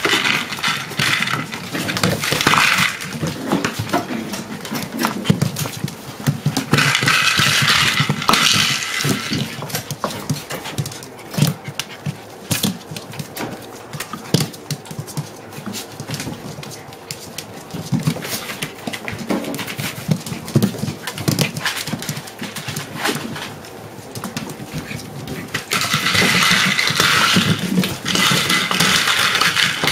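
Puppies playing: dog sounds over many small clicks and scuffles of paws and toys on a parquet floor, with louder stretches about a quarter of the way in and near the end.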